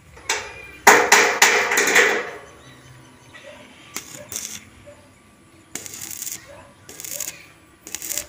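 Metal clattering: a quick run of sharp metallic knocks with a ringing edge about a second in, then scattered lighter taps and clicks.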